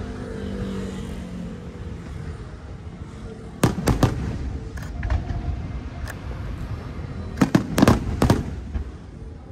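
Aerial firework shells bursting with sharp cracks over a low rumble: two loud bursts a few seconds in, a few fainter pops, then a quick cluster of about five bursts near the end.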